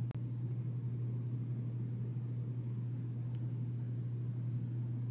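A steady low electrical or mechanical hum of room tone, broken by a very brief dropout just after the start.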